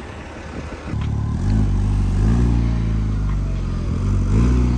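A car engine that comes in about a second in and is revved, its pitch rising and falling twice.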